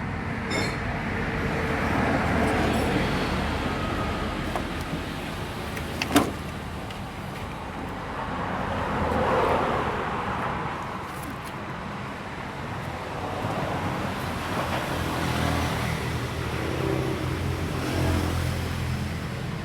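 Nissan YD25DDTi four-cylinder turbodiesel running steadily while the cooling system is bled of air, its level swelling and easing a couple of times. A single sharp click about six seconds in.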